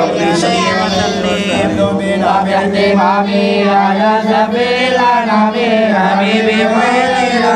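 A group of men chanting Arabic Mawlid verses in praise of the Prophet, holding long, drawn-out notes without pause.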